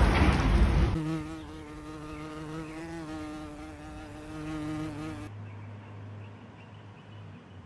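A loud rush of noise cuts off about a second in. Then a flying insect buzzes steadily for about four seconds, wavering slightly in pitch, followed by a low steady hum.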